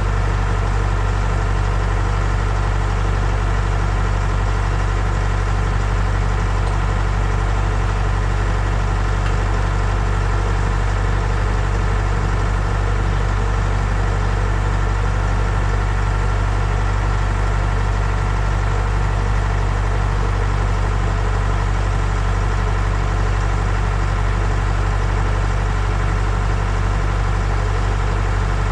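An engine idling steadily at a constant speed, with a strong low hum and no change in pitch.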